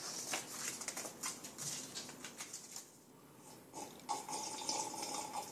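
Card-stock paper pieces rustling and tapping as they are sorted and handled, then a steady tone starting about four seconds in and lasting nearly two seconds.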